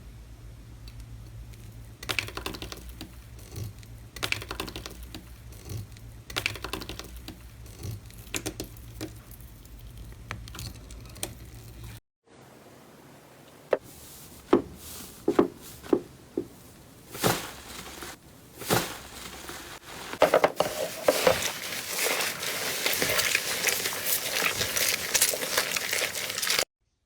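Slime being squeezed and worked by hand, crackling and popping. In the first part light crackles sound over a low hum. After a cut comes a string of sharp single pops, then dense, continuous crinkly crackling near the end.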